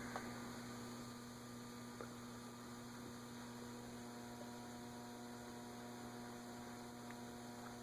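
Faint, steady electrical mains hum with a few thin higher tones above it, and no bearing noise, while the ceiling fan coasts to a stop.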